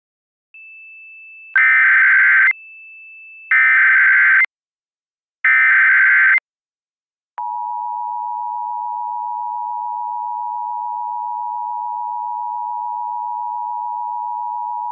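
Emergency Alert System header: three one-second bursts of SAME digital data tones, each a harsh warbling screech, about two seconds apart. They are followed from about halfway through by the EAS two-tone attention signal, a steady beep held on without a break, which announces an emergency alert broadcast. A faint steady high tone sounds under the start and between the first two bursts.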